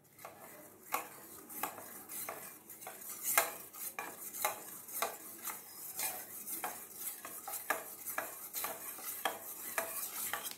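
A steel spoon stirring custard powder into milk in a stainless steel bowl, clinking and scraping against the bowl about twice a second as the powder is dissolved.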